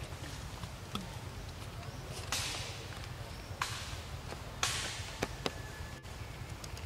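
Steady low rumble with three short hissing swishes, about a second apart, and a few sharp clicks.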